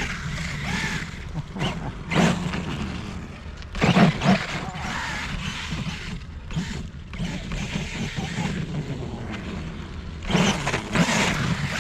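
Kyosho Foxx brushless RC truck on paddle tires, its motor revving in bursts as the tires churn through heavy powdery snow. The loudest bursts come about two seconds in, about four seconds in and near the end.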